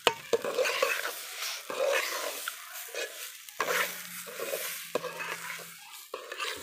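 Washed chinigura polao rice being stirred and fried in hot oil in a pot. A utensil scrapes and rustles through the grains in repeated, irregular strokes over a light sizzle.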